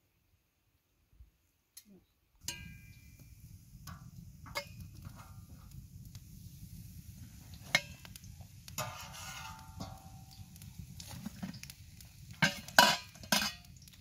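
Kitchen utensils knocking and scraping against a cooking pot over a steady low rush, with a few louder knocks near the end.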